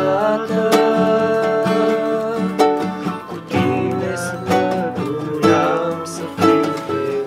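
Acoustic guitar and ukulele strummed together, playing a song. A sung line ends just at the start, then the two instruments play on with steady strummed chords.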